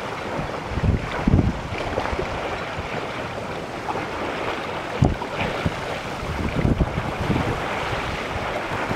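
Water rushing and splashing along the hull of an Albin Accent sailboat running under spinnaker. Wind buffets the microphone in several short gusts.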